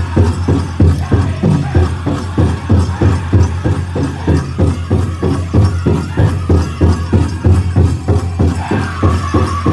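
Powwow drum group playing a men's chicken dance song: a big drum beaten in a fast, steady beat, with the singers' voices over it rising to a higher, held pitch near the end.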